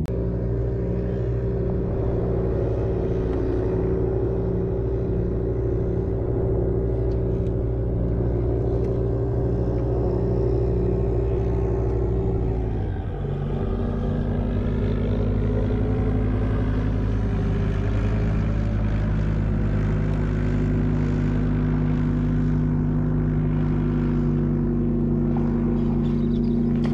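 A boat's outboard motor running steadily at a constant speed, with a regular pulsing in its low hum. About halfway through, the engine note drops and then settles at a new steady pitch.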